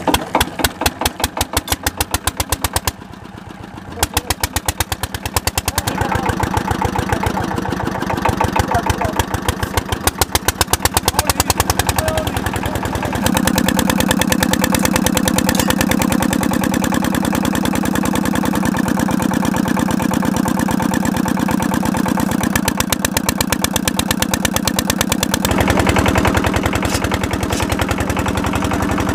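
Single-cylinder diesel engine running with an even, rapid firing beat as it drives a belt-driven centrifugal water pump on a new tubewell. The beat drops away for about a second around three seconds in, then picks up again and settles into a steady, fuller run from about halfway through.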